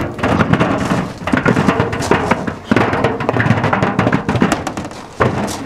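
Heavy objects thudding and clattering irregularly inside a turning tumble dryer drum, with music playing over it.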